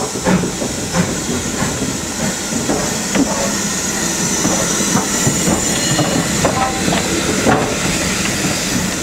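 LMS Ivatt Class 2 2-6-2T steam tank locomotive heard at close quarters, hissing steam steadily as it moves slowly past, with irregular soft beats and knocks from the engine.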